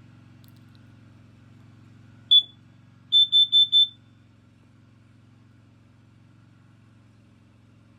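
Kidde combination smoke and carbon monoxide alarm's piezo sounder under test: one loud high beep, then about a second later four quick beeps in a row, the carbon monoxide alarm pattern.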